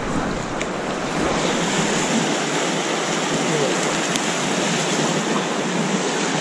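Steady rush of river water flowing fast past the rocks, an even hiss-like noise that does not let up.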